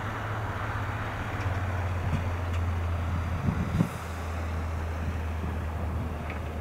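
Low, steady vehicle hum whose pitch steps down about a second and a half in and again around four seconds, with a few wind bumps on the microphone just before the second step.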